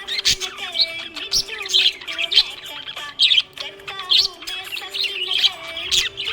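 Small pet parrots chirping continuously, with rapid, overlapping high chirps several times a second.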